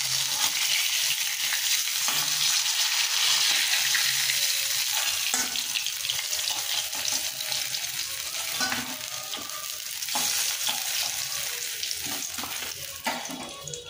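Fish pieces sizzling as they fry in hot mustard oil in a metal kadai. A metal spatula scrapes and knocks against the pan as it turns the fish and lifts it out. The sizzle fades near the end as the oil is left nearly empty.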